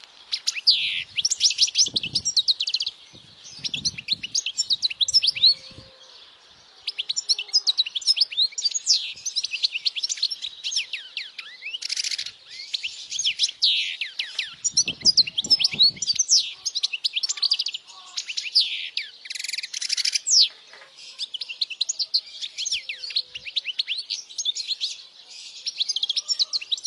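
European goldfinch singing: a fast, high twittering song of chirps, trills and quick sweeping notes in long phrases, with a short pause a few seconds in.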